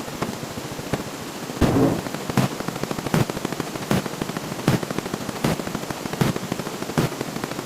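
Counting sound effects: a fast, continuous stream of clicks with a louder hit about every three-quarters of a second. A heavier, longer hit lands about a second and a half in.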